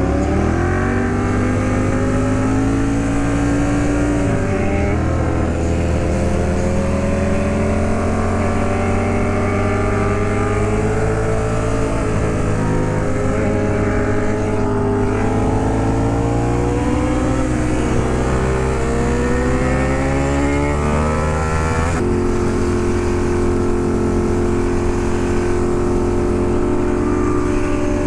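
Ducati Monster 821's L-twin engine pulling while riding. Its pitch rises, drops once about four seconds in, then climbs slowly. About twenty-two seconds in the note changes abruptly to a steady one.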